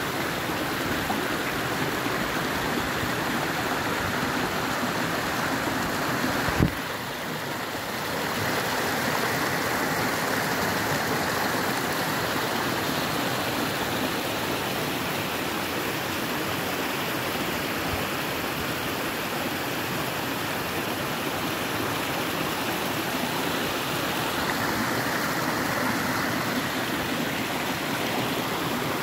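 Small stream splashing over stones in a steady rush of water, with a single brief knock about seven seconds in.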